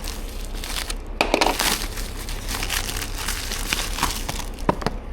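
A cardboard product box being opened by hand, its packaging rustling and crinkling with small clicks and a louder crinkling burst about a second in.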